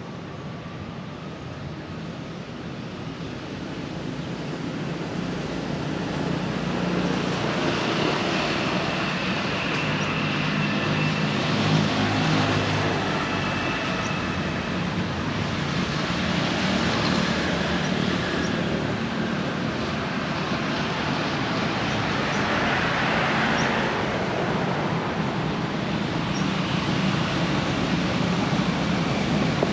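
Steady motor-traffic noise, an engine hum with road rumble, that swells over the first several seconds and then holds loud. A few faint high bird chirps sound through it.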